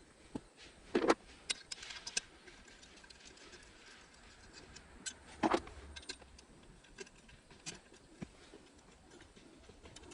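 Irregular light metallic clicks and ticks of hand tools working the bolts on a Nissan 350Z's shifter assembly, with two louder knocks, about a second in and about five and a half seconds in.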